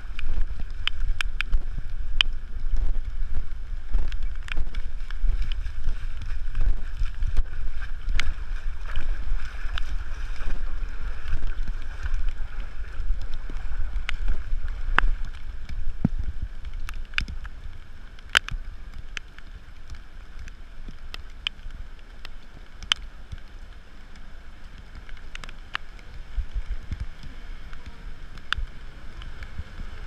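Wind rumbling on the microphone over water sloshing and splashing as the camera moves through knee-deep floodwater, with scattered sharp ticks throughout. The rumble is heavier for the first half and eases after about 17 seconds.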